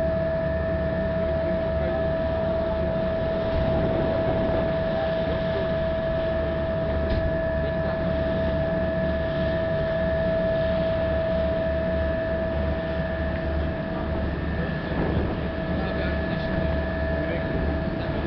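Car ferry's engine running under way, a steady low drone with a constant whine over wind and water noise.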